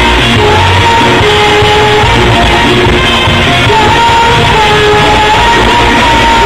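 Loud live band music with singing, from a large ensemble with a horn section and hand drums, recorded through a phone's microphone in a big hall. Long held notes run over a dense, unbroken backing.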